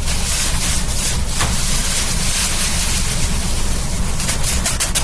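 Amazon Basics box fan running loudly with a plastic grocery bag caught in its blades: a steady rush of air, and from about four seconds in a fast, regular ticking that speeds up as the bag slaps against the spinning blades.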